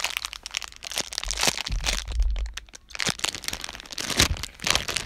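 Crinkling and crackling of a squishy toy and its packaging being handled close to the microphone, with a low handling bump about two seconds in.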